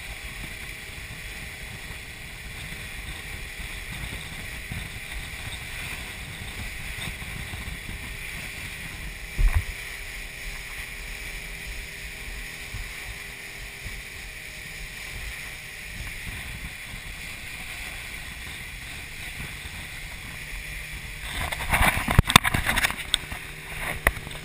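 Small motorboat running at speed: a steady engine drone mixed with wind and water rush. A single thump comes about nine and a half seconds in, and near the end there is loud knocking and rubbing as the camera is handled.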